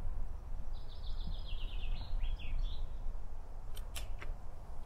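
Strong wind buffeting the microphone with a steady low rumble. A small bird sings a rapid trill of high repeated notes that step slightly down in pitch for about two seconds, and a few short sharp clicks come near the end.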